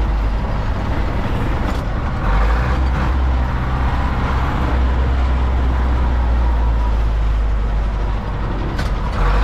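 Zetor 7245 tractor's four-cylinder diesel engine running while driving, heard from inside the cab as a steady low drone, with a brief dip in level about eight seconds in.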